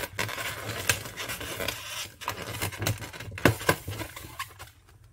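Inflated 260 latex modelling balloons handled as their two nozzles are knotted together: rubber rubbing and scraping under the fingers, with several sharp clicks, growing quieter near the end.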